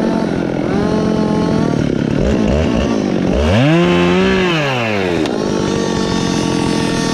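Two-stroke chainsaw engine running, revved up sharply about halfway through, held high for about a second, then dropping back to a lower speed.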